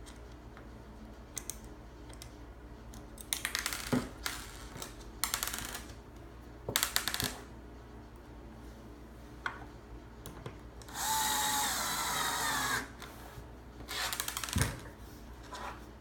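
A power screwdriver driving screws into a coin lock's mounting plate: a steady whine of about two seconds from the driver running, with several shorter noisy bursts of driving and rattling before and after it.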